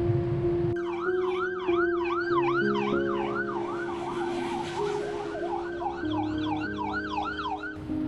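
Emergency vehicle siren on a fast yelp, its pitch sweeping up and down about three times a second with overlapping sweeps, over background music with held notes. The siren starts about a second in and stops just before the end.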